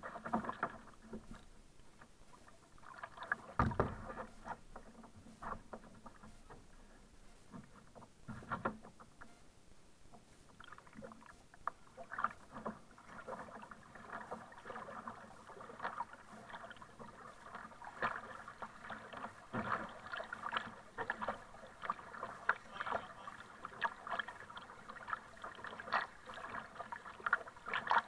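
Kayak paddle strokes in the water, with many small irregular splashes and drips and water slapping against the hull of a sit-on-top kayak. A single loud thump about four seconds in.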